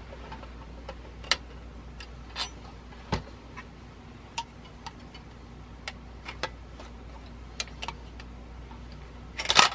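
Small, irregular clicks and taps of metal camera parts and hand tools being handled while a Zeiss Ikon Ikoflex camera is reassembled, with a louder short clatter near the end.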